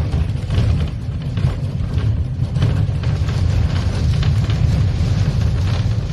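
Heritage electric tram running along its track, heard from inside the passenger saloon: a steady low rumble with irregular knocks and rattles.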